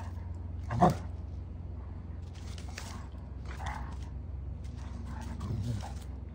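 Two dogs playing together, a German shepherd and a small white dog: one short, sharp bark about a second in, then several softer short vocal noises as they spar.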